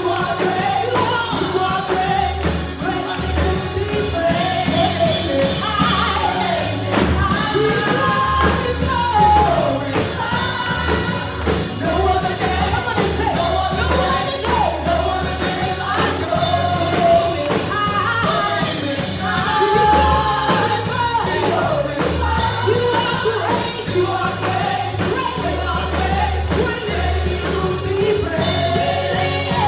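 Gospel praise-and-worship music with singing, over a steady bass line and a continuous beat from the band.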